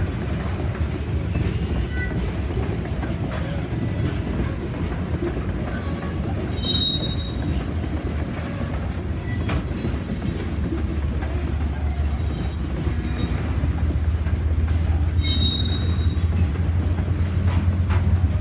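A slow-moving freight train, a diesel locomotive with tank cars, rolls past with a steady rumble and scattered clicks from the wheels over the rail joints. Wheels squeal briefly twice. The locomotive's engine grows louder in the second half.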